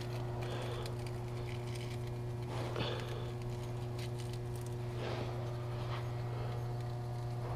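Velcro straps and a wire being handled and fastened under a car: a few short rustling scrapes, over a steady low hum.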